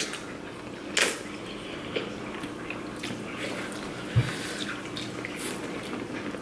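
Close-miked eating sounds: wet chewing and mouth noises from two people eating seafood-boil corn and pasta. A sharp click comes about a second in and a low thump about four seconds in, over a faint steady hum.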